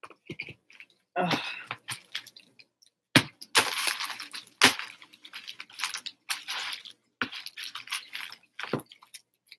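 Plastic candy wrappers crinkling and rustling in irregular bursts as hands dig through a heap of wrapped candy on a tabletop.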